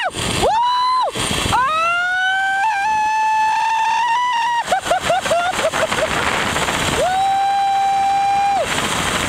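A woman screaming in long, held screams while speeding down a zipline, with a run of short, broken yelps in the middle, over a steady rush of wind on the microphone.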